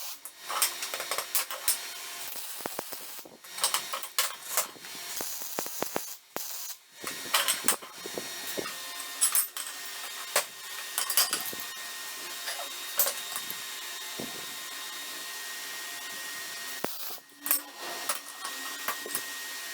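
Workshop tool work: irregular clicks, knocks and scraping over a steady hum.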